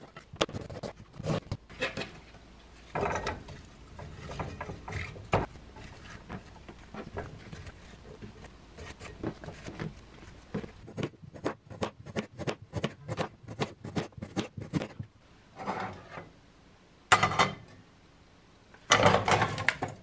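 Kitchen knife slicing a crisp Asian pear thin on a cutting board: repeated sharp cuts, each ending in a tap on the board, at about three or four a second in the busiest stretch. Pear slices being handled into a pot, with a few louder knocks near the end.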